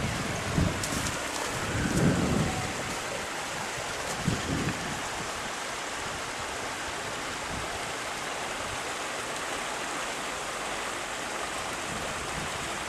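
Steady rushing hiss of floodwater, with wind buffeting the microphone a few times in the first five seconds.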